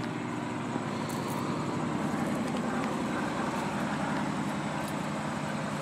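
A car engine idling steadily, a low even hum with no change in speed.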